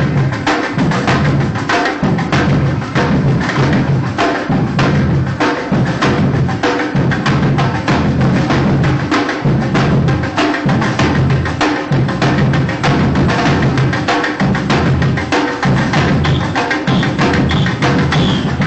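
Street percussion band of snare drums and large shoulder-slung bass drums playing together, fast sharp strokes over a deep, steadily repeating bass-drum beat.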